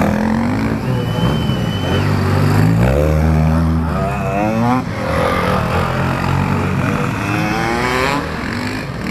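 Off-road enduro motorcycles riding past close by one after another, their engines revving up and down as the throttle opens and closes, with the hardest revving about three to five seconds in.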